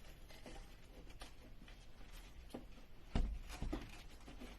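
Light clicks and knocks of a drain-pipe inspection-port fitting being put onto the pipe, with a heavier knock a little after three seconds in and a smaller one just after.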